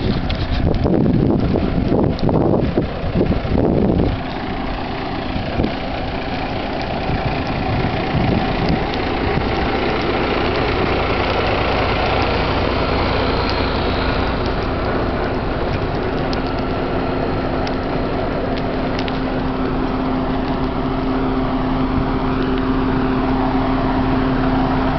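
An engine idling steadily with a constant hum, under the rush and crackle of a large open fire. The first four seconds are louder, with gusty rushing.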